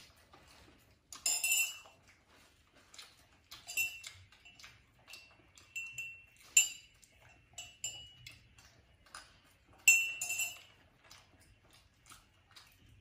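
A spoon clinking against tableware, a series of light clinks with a short bright ring, the loudest about a second in and again near ten seconds.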